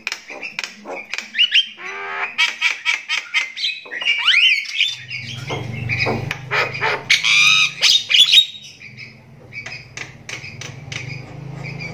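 Javan myna (jalak kebo) of the pale 'mata kristal' eye type calling loudly in the harsh 'tribal' style: a fast string of clicks and rasping squawks, rising whistled notes about four seconds in, and a dense burst of shrill calls around seven to eight seconds.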